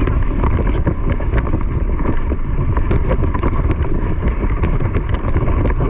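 Wind buffeting the microphone during fast movement, a loud steady rumble with scattered small clicks and knocks throughout.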